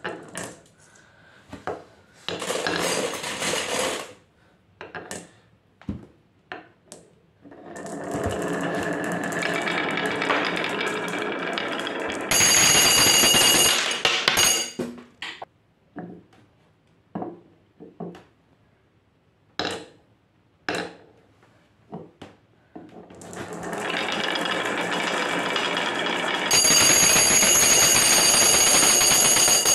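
Glass marbles rolling down the wavy grooves of a wooden beech marble track, with scattered sharp clicks as marbles are set down and knock together. Twice the rolling builds into a long rumble that turns into a louder, ringing rattle of marbles spinning in a glass jar.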